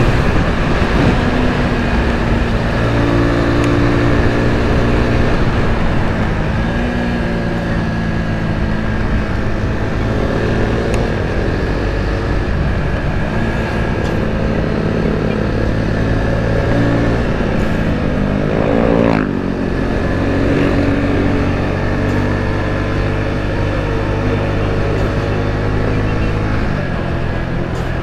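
Suzuki Gixxer 250's single-cylinder engine running steadily under way, with wind rush around it. The engine note shifts pitch as the speed changes, and about two-thirds of the way in it briefly drops and then climbs again.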